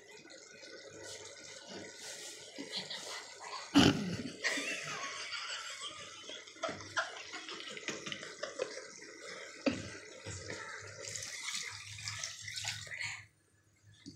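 Dal cooking in a steel pan: watery bubbling and sizzling of the liquid, with a sharp knock about four seconds in and another near ten seconds. The sound drops away shortly before the end.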